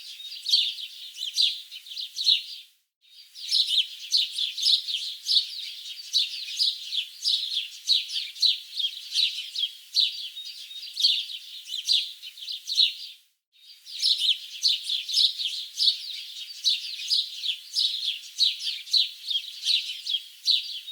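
Wild birds chirping busily, many short high calls overlapping in a steady chorus that cuts out completely twice for under a second.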